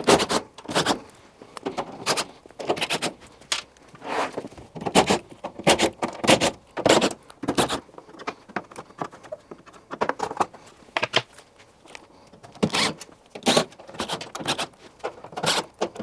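Cordless drill-driver backing out the side-panel screws of a tumble dryer's sheet-metal cabinet, with metallic clinks. The sound comes as a rapid, uneven string of short bursts.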